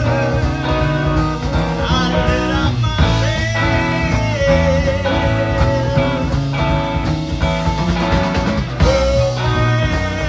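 A 1970s prog-rock band playing electric guitars, bass and drums, with a lead line holding long wavering notes. It is an old reel-to-reel tape recording from 1975 transferred to digital.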